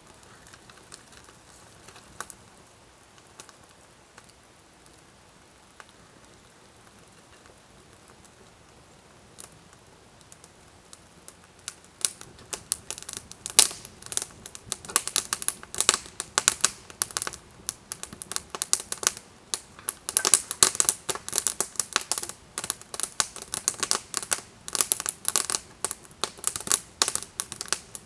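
Wood campfire crackling. A few scattered crackles at first, then from about twelve seconds in a dense run of sharp, irregular crackles as freshly laid split kindling catches.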